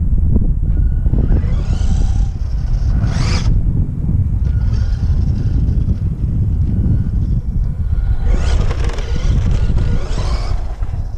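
Radio-controlled model car's motor whining, rising in pitch as it speeds up several times, over heavy wind rumble on the microphone.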